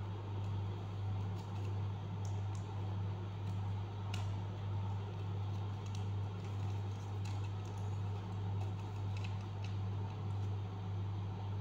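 Paper being folded and creased by hand: faint scattered crinkles and taps over a steady low hum.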